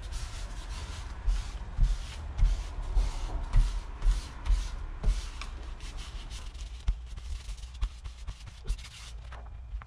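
Hands rubbing firmly back and forth over griptape through a sheet of its backing paper, pressing it onto a skateboard deck to work out air bubbles: repeated scratchy strokes about two a second with soft thumps, thinning out in the last few seconds.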